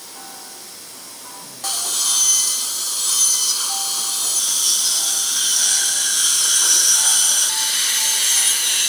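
A loud, steady hiss from surgical equipment at the operative site starts abruptly about one and a half seconds in and keeps going, over faint background music.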